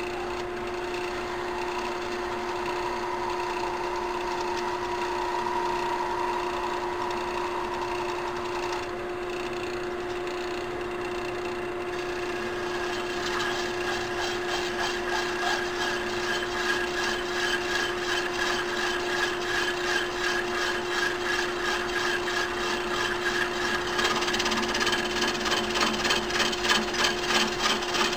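Small lathe running with a steady hum. From about 13 seconds in, a fast, rhythmic rasping starts and grows stronger as a plier-type knurling tool's two wheels are pressed onto the spinning stock, re-rolling cross hatches into a pen center band.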